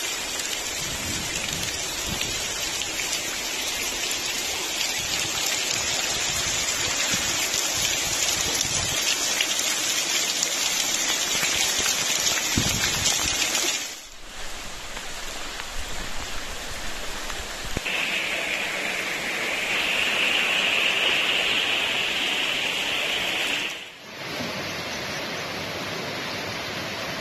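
Heavy rain and floodwater running through a street: a steady hiss of water that changes abruptly twice, with a brighter, higher hiss for a few seconds before the second change.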